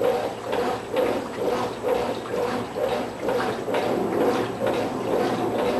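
Brastemp Tira-Manchas 9 kg top-load washer agitating, the sheets and water sloshing in the drum in a rhythm of about two pulses a second.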